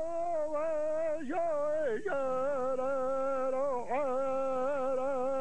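A man singing a Native American war song alone and unaccompanied, holding long wavering notes and dropping to a lower held note about two seconds in.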